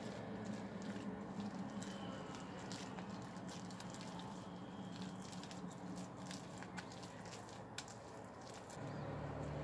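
A spatula stirring flour and liquid into a sticky bread dough in a glass bowl, making many soft ticks and scrapes as it knocks against the bowl, over a low steady hum.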